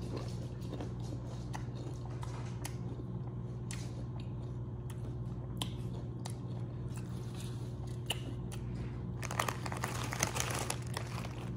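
Close-up crunchy chewing of pickles and jalapeños, with a steady low hum underneath. Near the end a snack bag crinkles.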